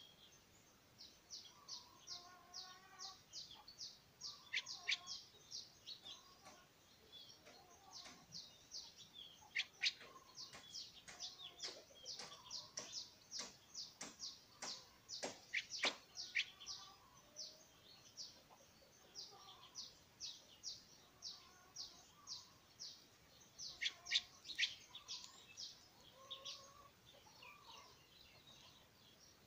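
Young streak-eared bulbul calling: a rapid series of short high chirps, about three a second, with a few longer downward-sweeping notes, and softer lower warbled notes mixed in.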